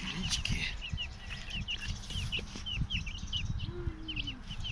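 Small birds chirping: short, quick chirps repeated several times a second. Low thumps and rustling run underneath.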